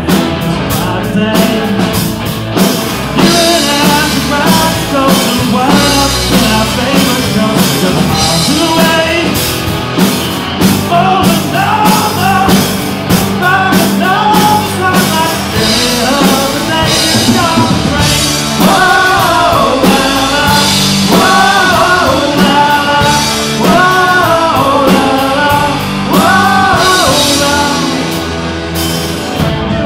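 Live rock band playing loud through a PA: electric guitars, bass and drum kit, with lead vocals over them, clearest in the second half.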